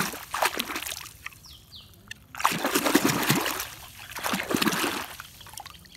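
A small toy vehicle swished by hand through water to rinse off mud: three bouts of splashing and sloshing with short, quieter gaps of trickling between them.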